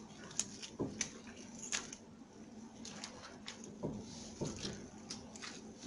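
Lemon slices and sugar being kneaded and squeezed by a plastic-gloved hand in a ceramic bowl: faint, irregular squelching and clicking.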